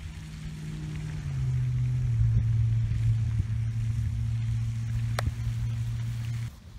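A motor running steadily with a low hum. Its pitch drops once about a second in, holds, and stops abruptly near the end, with one sharp click about five seconds in.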